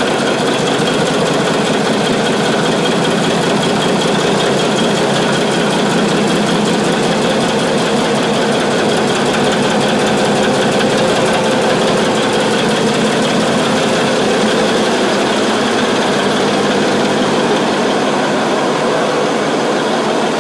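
A ship's main engine running steadily, heard close up in the engine room as a loud, even machine din.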